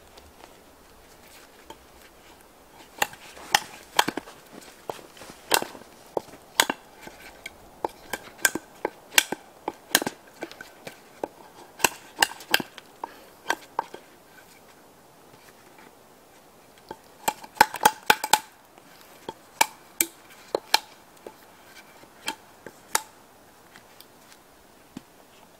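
Irregular sharp knocks and clicks of wooden sticks being worked and fitted against a portable wood stove's leg supports, with a quick flurry about two-thirds of the way through.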